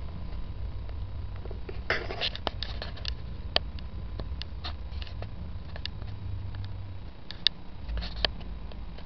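Low steady hum with scattered small clicks and a brief rustle about two seconds in, as from a handheld camera being held and moved while it films a TV screen.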